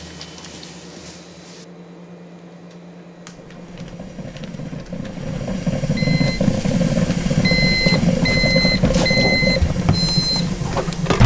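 Coffee maker running over, with a low rumbling gurgle that builds and grows loud. An electronic beep sounds once about six seconds in, then repeats four times about a second apart.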